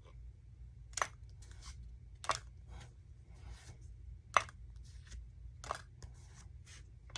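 Pokémon trading cards being handled and flipped one by one, a series of short papery swishes and snaps at irregular intervals of roughly a second.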